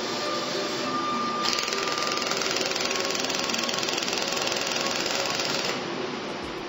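Pulsed laser welder firing a rapid run of pulses into a metal sheet, a fast even ticking that starts about a second and a half in and stops near the end.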